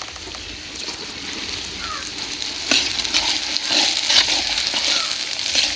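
Onion, carrot, beans and just-added cabbage sizzling in oil as they are stir-fried, with the clicks of a ladle stirring against the pan. The sizzle grows louder about three seconds in.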